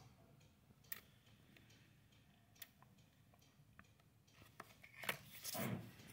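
Electronic circuit boards being handled: a few faint scattered clicks, then a louder clatter and rustle about five seconds in.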